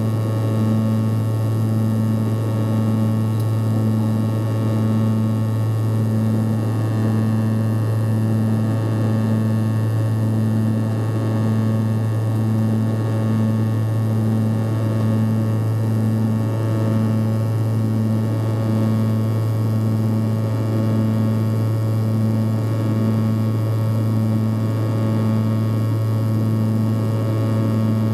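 Antonov An-140's twin turboprop engines and propellers running at climb power, heard inside the passenger cabin: a steady low drone with a higher tone that pulses evenly about one and a half times a second, over a steady rush of air.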